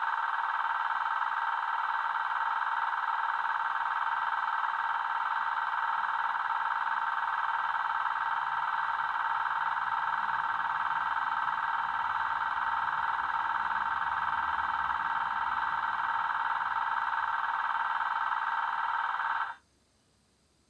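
DCC sound decoder in a Hornby Class 87 model locomotive playing the stationary electric loco's steady idle sound through its small speaker. It cuts off suddenly near the end.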